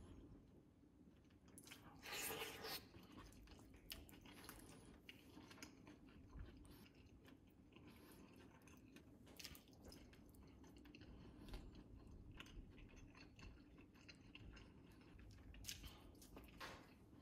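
Faint wet squelching, tearing and crackling of air-fried whole chicken as it is pulled apart by hand, with a louder crackle of skin about two seconds in and another near the end, over a faint low hum.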